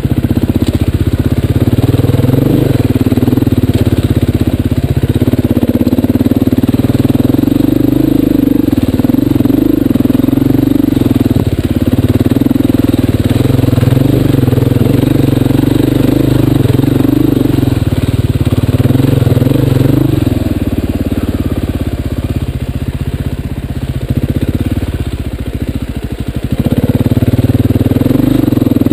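Enduro dirt bike engine running as it crawls along rocky singletrack, the note rising and falling with the throttle. It drops off for several seconds past the middle, then picks up again near the end.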